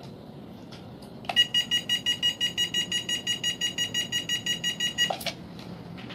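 Rapid electronic beeping from the Fast F4 drone and its remote, about seven short beeps a second for nearly four seconds, with a sharp click just before the beeping starts and another as it stops.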